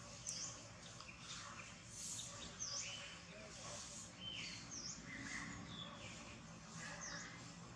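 Birds chirping in the background: short high notes that dip and rise again in pitch, repeated every second or two, with some lower falling calls between them, over faint outdoor ambience.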